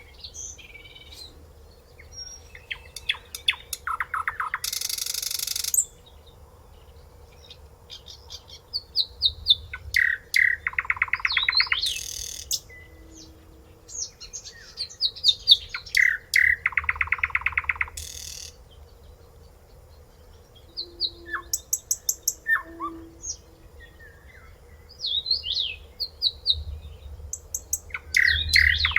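A songbird singing the same song phrase over and over, about four times: a run of quick rising notes that leads into a fast, even trill and ends in a harsh rasping burst. Softer scattered chirps fill the gaps between phrases.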